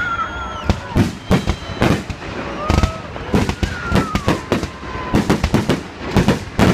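Salute fireworks bursting in quick, irregular succession, with many sharp bangs several a second. Thin high tones slide slowly downward between them.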